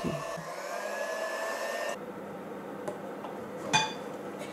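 Electric hand mixer running at low speed in meringue, its motor whine rising slightly in pitch, then dropping away about two seconds in. A single sharp, ringing glassy clink comes near the end.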